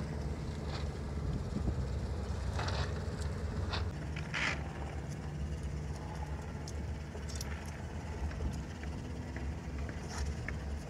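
A steady low rumble on open water, with a few short rustles and knocks as a cast net's hand line is gathered and coiled, clustered from about two and a half to four and a half seconds in.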